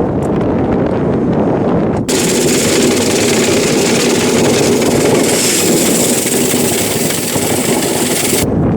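Dryer vent cleaning equipment running in the vent duct: a loud, steady mechanical noise, joined about two seconds in by a rushing hiss that cuts off abruptly near the end.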